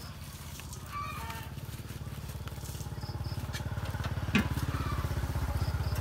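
Small motorcycle engine idling with a fast, even putter that grows somewhat louder partway through; a single sharp click about four seconds in.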